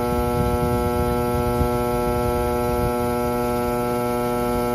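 Steady electrical hum from a running CNC cutting machine: one unbroken drone of several even tones over a low rumble.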